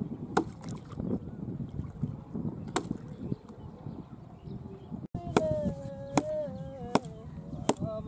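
Rumbling outdoor noise with a few scattered knocks; about five seconds in, a man starts singing a Bengali song with long held notes over sharp chopping knocks, about one a second.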